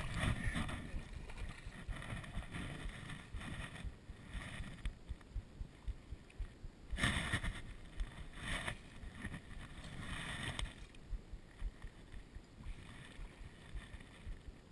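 Hooked largemouth bass thrashing and splashing at the water's surface, a run of irregular splashes with the strongest a little past halfway.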